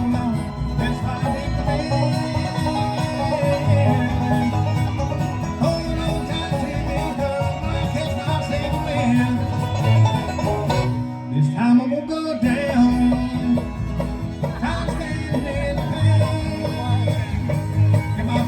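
Live band playing an instrumental break between sung verses of a country-bluegrass song, with plucked strings; the low end thins out briefly about eleven seconds in.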